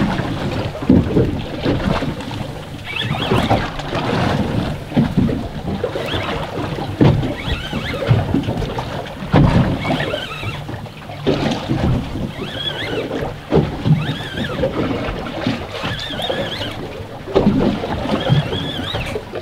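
Sea water slapping and sloshing against the hull of a small boat, with uneven low thumps and wind buffeting the microphone. Short, wavering high squeaks come now and then in the second half.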